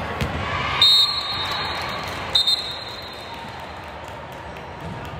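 Referee's whistle blown in two short, shrill blasts about a second and a half apart, the sign that a rally is over and a point awarded. Underneath runs the steady hubbub of a busy gym.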